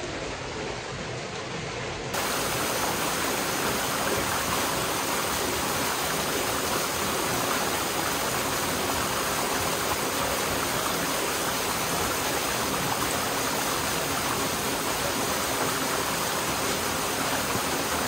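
Small waterfall pouring down a rock chute into a shallow pool: a steady rush and splash of water, louder from about two seconds in.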